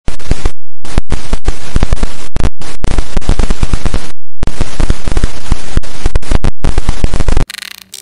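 Electricity sound effect: a loud, dense crackling of electric zaps and arcing, broken by a few brief gaps, cutting off suddenly about seven and a half seconds in.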